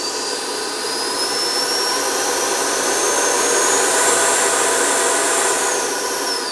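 The FMS Futura's 64mm 11-blade electric ducted fan running up under throttle: a whine that climbs steadily in pitch and loudness, holds near full power, then falls away near the end as the throttle is cut.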